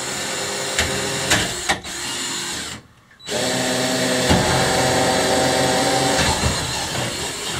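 Cordless drill running under load in two long runs, with a short pause about three seconds in.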